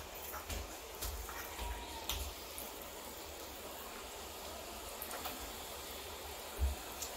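Hot oil sizzling steadily around balls of urad dal and rice batter deep-frying in a pan, with a few faint clicks and a short dull bump near the end.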